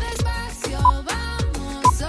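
Background workout music with a steady beat: a deep kick drum about twice a second under a melodic line.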